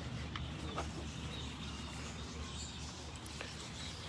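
Faint birds chirping over a steady low outdoor rumble, with a few faint clicks.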